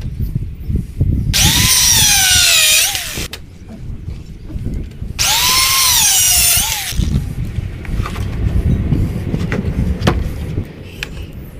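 Power drill run twice on pallet wood, each run about two seconds long, its motor pitch rising and then sagging before it stops. Knocks and clatter of the pallet boards being handled in between and afterwards.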